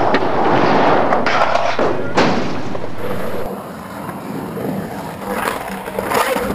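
Several sharp thuds over a loud noisy din. The din drops to a quieter level about three and a half seconds in.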